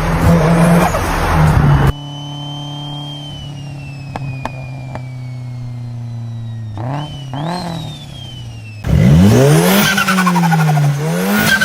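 Turbocharged car engines in a series of short clips: a loud run, then an engine idling with a high turbo whistle slowly falling in pitch and two small blips, then repeated revs rising and falling sharply as the throttle is snapped open and shut, the on-off throttle that produces turbo flutter.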